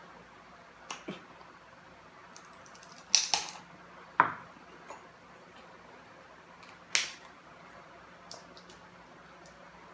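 Crab leg shells cracking and snapping as meat is picked out by hand: a few sharp, separate cracks, the loudest a little after three seconds in, another near seven seconds, with small clicks between.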